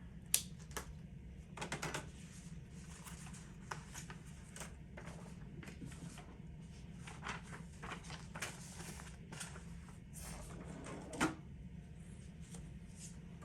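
Quiet room tone: a steady low hum with scattered faint clicks and rustles of handling, the sharpest click just after the start and a soft knock near the end.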